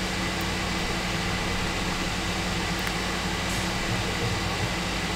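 A steady hum and hiss of a fan running, even throughout.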